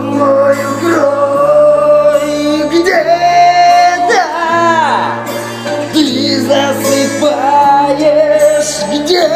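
Music from a song without words: long held melody notes that slide from one pitch to the next, over a bass line that changes note about every one and a half seconds.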